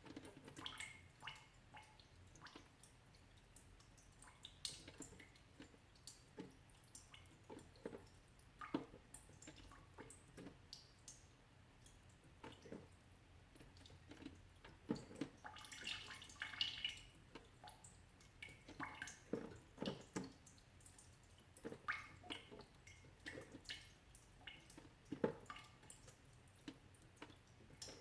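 Water dripping irregularly from melting ice, single drops landing about one or two a second, faint and sharp, with a brief quicker cluster of drips about halfway through.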